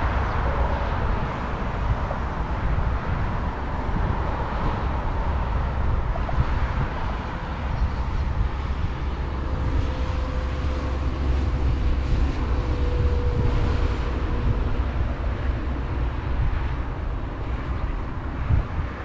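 Steady low outdoor rumble with a haze of background noise, and a faint steady hum in the middle of the stretch.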